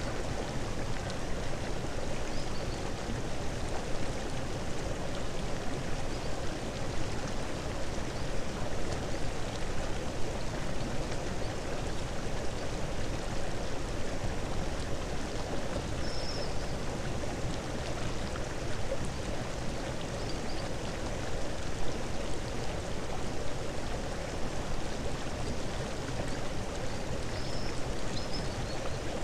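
A steady rushing noise like running water, unchanging throughout.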